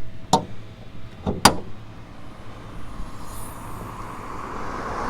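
Two sharp clunks about a second apart from the bodywork of a Mercedes-AMG GLS 63 being handled, over a steady low hum, followed by a rising rush of noise in the second half.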